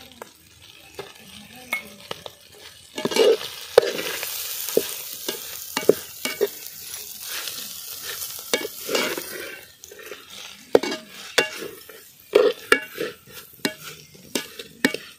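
Metal ladle stirring goat boti (intestine) and drumstick flowers frying in a large metal pot, scraping through the food and knocking against the pot's sides. The food sizzles from about three seconds in to about nine seconds; after that come sharper taps and clicks of the ladle on the pot.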